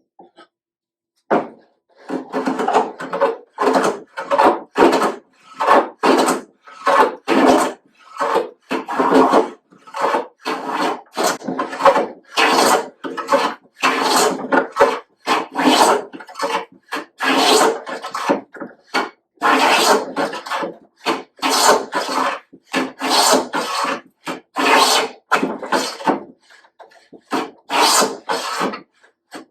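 Hand plane shaving a board's edge in quick repeated strokes, about one to two a second, with a short break near the end.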